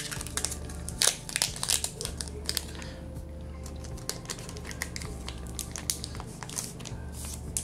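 Foil wrapper of a Pokémon Scarlet & Violet 151 booster pack crinkling as it is torn open by hand. The crinkling is dense for the first three seconds, then thins to scattered crackles.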